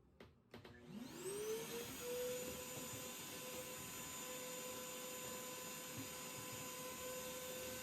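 Revair reverse-air hair dryer's suction motor starting up about a second in: its whine rises in pitch for about a second, then it runs steadily and faintly.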